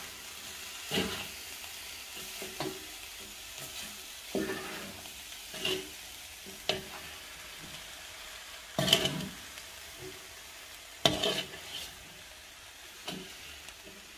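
Minced-meat filling with onions and peas sizzling in a stainless steel pan as a slotted spatula stirs it, scraping the food around with irregular knocks against the pan, the loudest about nine and eleven seconds in.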